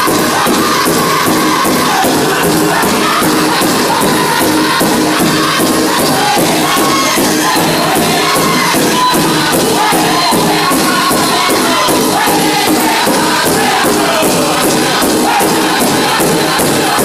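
Powwow drum group singing in high voices over a large shared drum struck by several drummers together in a steady, even beat.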